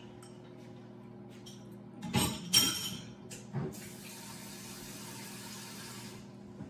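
A few loud clattering sounds about two seconds in, then a steady hiss like a water tap running for about two seconds, which cuts off suddenly.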